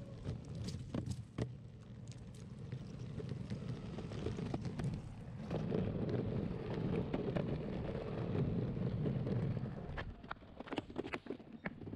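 Longboard wheels rolling on pavement, a rough steady rumble of road noise with wind on the microphone, broken by sharp clicks as the wheels hit cracks and joints. About ten seconds in the rumble drops and the clicks come thicker and closer together.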